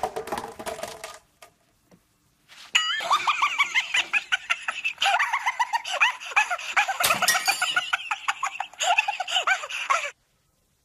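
Stainless steel basins being struck and knocked against each other: a quick, dense run of short ringing clinks whose pitch wobbles, starting about three seconds in and stopping abruptly near the end.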